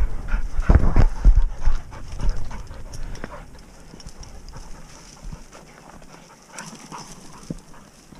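Footsteps on stony ground, with heavy thumps and knocks in the first two seconds or so, then lighter scattered ticks from moving through scrub. A working springer spaniel is panting while it hunts close by.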